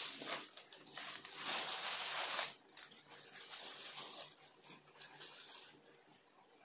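Saree fabric rustling as it is unfolded and handled, loudest about one and a half to two and a half seconds in, then fainter rustles.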